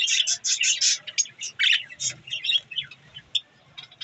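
Budgerigars chirping and chattering in quick high bursts, densest in the first second and thinning out toward the end.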